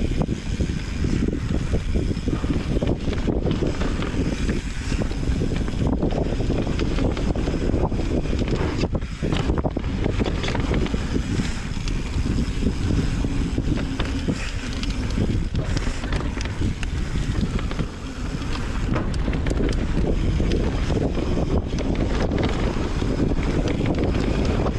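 Wind buffeting the microphone over the clatter and rattle of a mountain bike riding down a dirt trail, with many short knocks from the bike over bumps.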